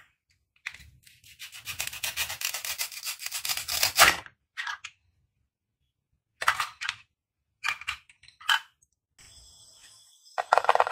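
Velcro tearing apart as a plastic toy knife cuts through a velcro toy fruit: a long crackling rip that ends in a sharp snap about four seconds in. A few light plastic knocks follow as the toy pieces are set down, and a shorter rasp comes near the end.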